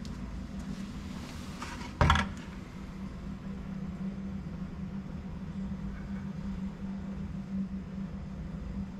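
A steady low hum of background machinery, with a single sharp knock about two seconds in.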